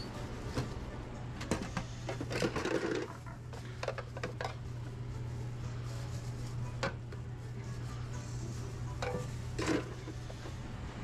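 Metal kitchen clatter: a stainless steel cabinet door and metal pans knocking and scraping, and metal tongs clicking against a pan, in scattered knocks over a steady low hum.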